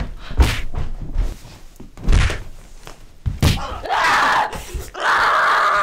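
Scuffle on a wooden floor: three heavy thuds of bodies landing and struggling, then a woman's sustained yelling through the last couple of seconds.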